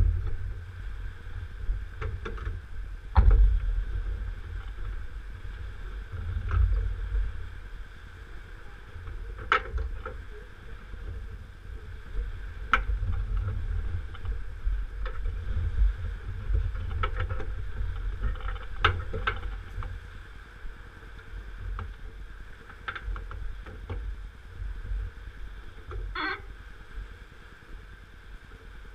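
Wind buffeting the microphone: a gusty, uneven low rumble that swells and eases, with scattered faint clicks and a sharp jolt about three seconds in.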